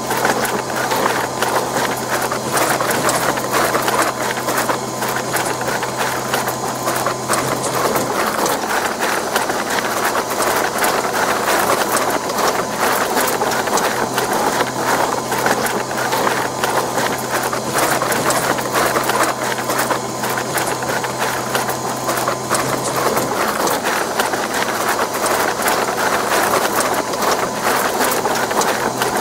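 Electric bread-dough mixer running continuously, its motor giving a steady low hum under a dense churning, rattling noise from the kneading.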